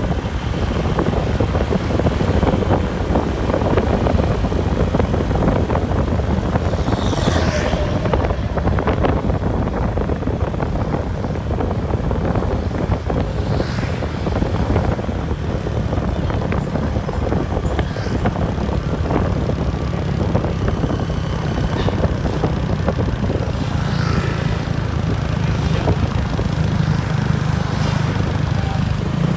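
Steady engine drone and road noise of a moving vehicle, with a few brief faint whooshes.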